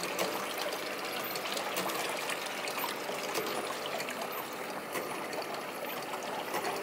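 Water trickling and splashing steadily down a miniature model waterfall, with scattered small clicks.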